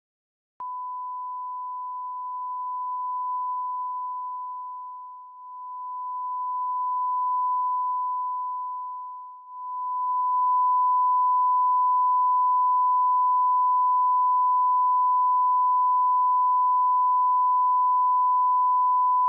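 Colour-bar test tone: one steady pure tone that begins just after the start, wavers in loudness with two deep dips in the first half, then holds steady and louder from about halfway on.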